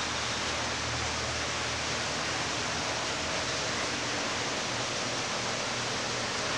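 A steady, even hiss at a constant level, with no distinct events.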